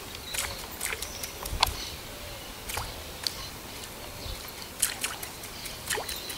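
Topwater walk-the-dog lure (a Clyde, Bonnie-style stickbait) twitched across a pool's surface, giving a series of short splashes and plops at irregular intervals, about a dozen in all.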